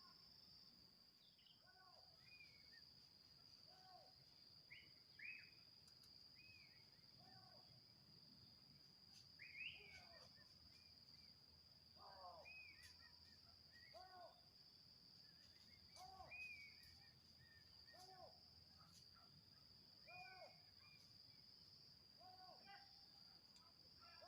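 Faint outdoor ambience: insects droning steadily at a high pitch, with a bird giving a short low call about every two seconds and a few higher chirps in between.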